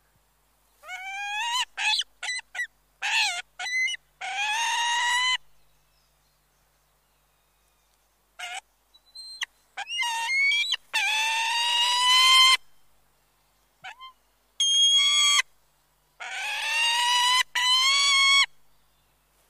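A bird of prey calling: a series of calls that rise in pitch, some short and several lasting one to two seconds, in clusters separated by silent gaps.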